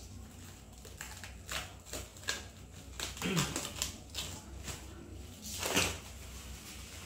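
Plastic protective wrapping being cut and pulled off a new electric scooter: a run of short rustles, crinkles and scrapes, loudest about three seconds in and again near the end.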